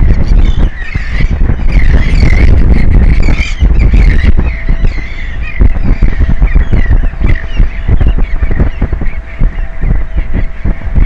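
Seabirds giving repeated short honking calls over heavy wind buffeting the microphone, with a faint steady hum underneath.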